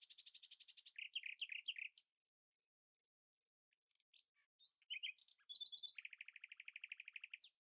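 A songbird singing quietly against an otherwise silent background. It gives fast, even trills and quick chirps, breaks off for about a second and a half, then resumes with more chirps and a final long trill.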